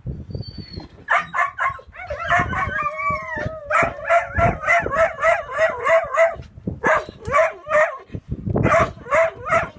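A dog howling and barking. A long wavering howl comes about two seconds in, followed by quick rhythmic yelping barks, about three a second, in runs with short pauses.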